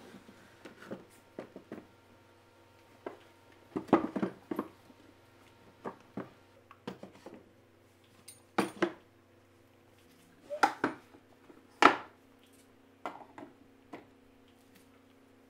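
Irregular knocks and clinks of hard objects being handled, a dozen or so at uneven intervals, over a faint steady hum.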